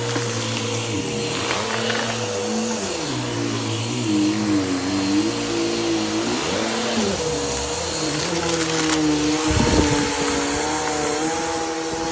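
Vacuum cleaner running steadily over a constant airflow hiss, with a steady motor whine and lower tones that keep sliding up and down. A brief low thump comes about ten seconds in.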